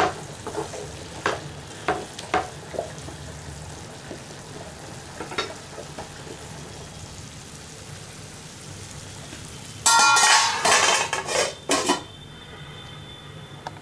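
A wooden spatula scrapes and taps in a nonstick frying pan as cauliflower, onion and tomato are stirred, over a steady frying sizzle. About ten seconds in, a metal lid clatters and rings as it is set on the pan. The sizzle then goes quieter and duller under it.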